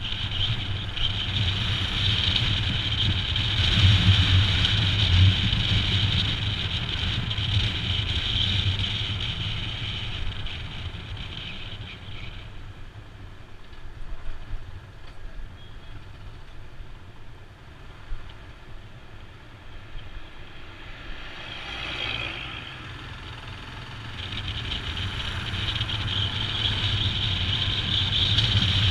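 Royal Enfield Himalayan's single-cylinder engine running as the motorcycle rides. The engine noise falls off through the middle as the bike slows behind traffic, then builds again over the last few seconds as it picks up speed.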